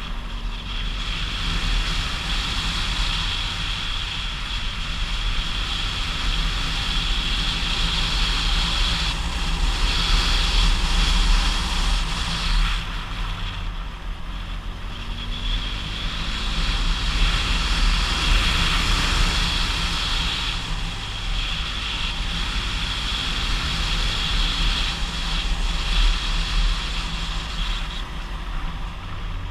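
Motorcycle engine running steadily while climbing a mountain road, under heavy wind rush on the camera; the wind noise swells and eases a few times.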